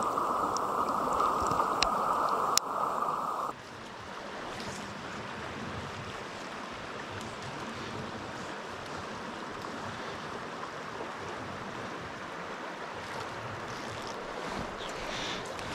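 Stream water rushing, heard underwater and muffled, with a couple of faint clicks, cutting off suddenly about three and a half seconds in. Then the steady rush of a shallow stream flowing over a rocky bed.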